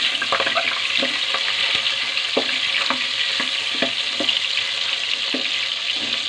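Cubes of pork sizzling in hot oil in a pan, with scattered knocks and scrapes of a wooden spatula stirring them against the pan.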